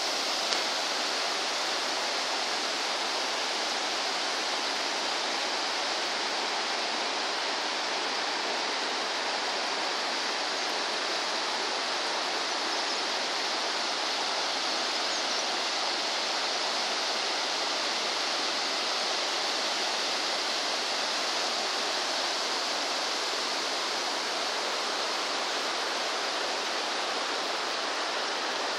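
Shallow, fast-flowing river running over a bed of rocks and stones: a steady, even rush of water that does not change.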